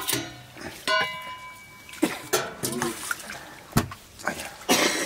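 Rice being washed by hand in a plastic basin of water: grains rubbed and squeezed between the palms, with water sloshing and splashing. A single sharp knock comes about two-thirds of the way through.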